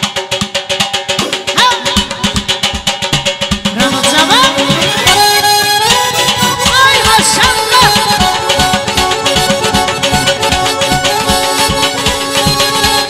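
Instrumental Azerbaijani wedding dance music led by a qarmon (button accordion) over a fast, steady drum beat. The playing fills out and grows brighter about four seconds in.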